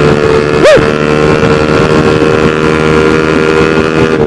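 Honda New CB150R's single-cylinder engine running at a steady speed through a Spartan GP aftermarket racing exhaust while the bike is ridden, with wind noise. A short tone rises and falls once less than a second in.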